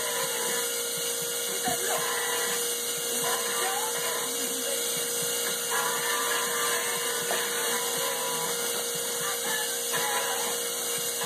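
Dual-action (DA) sander running steadily with a constant whine, sanding a rough cast supercharger housing flat and smooth.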